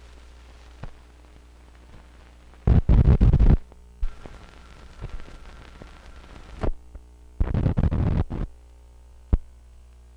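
Film soundtrack noise while scratched blank leader runs: a steady hum with scattered pops and clicks, and two loud bursts of crackling, about three seconds in and again about seven and a half seconds in.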